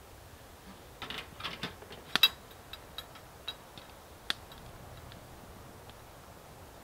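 Metal clinks and rattles of a camp cooking pot being lifted off a small wood stove and set down, with two sharp clanks about two seconds in and a few lighter ticks after.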